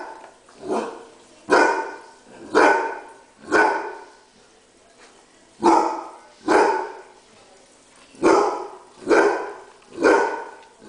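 Basset hound barking repeatedly in anger at another dog eating its dinner: about nine loud single barks, spaced out in small groups, with a pause of about two seconds near the middle.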